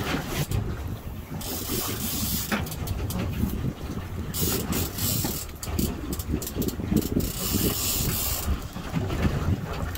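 Boat under way at sea, with a rumble and wind buffeting the microphone, overlaid with irregular mechanical clicking and rattling.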